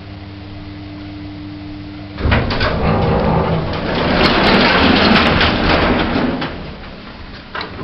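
Original 1970s lift: a steady hum stops about two seconds in, then the lift doors slide with a loud rattling rumble for about four seconds before it dies down.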